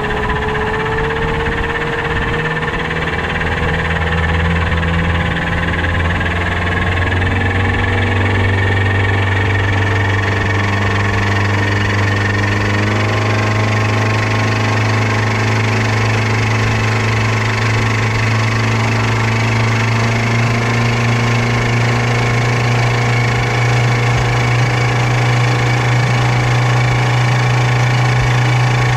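New outboard motor running steadily during its break-in, its note shifting slightly a few times.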